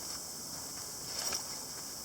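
Small wood fire crackling inside a chimney-style charcoal starter, with a short cluster of pops a little past a second in, over a steady high hiss.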